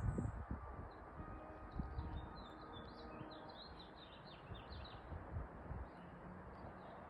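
Small birds chirping, with a quick run of twittering calls about two to five seconds in, over a low, uneven rumble that is strongest at the start.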